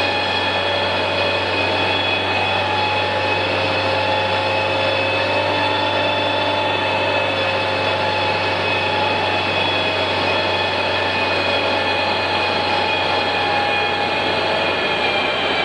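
A 1991 Honda CRX's 1.6-litre four-cylinder engine running hard at a nearly steady high speed on a chassis dynamometer, its drive wheels spinning the dyno rollers with a whine. The pitch holds almost level through the run and eases down slightly near the end.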